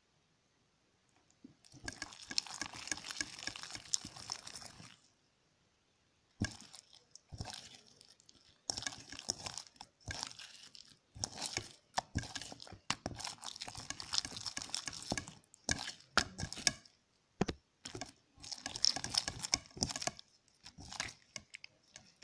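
A thick white liquid pouring into a bowl for about three seconds, then fingers kneading, squishing and pulling sticky slime in the bowl, giving short irregular wet crackling squelches.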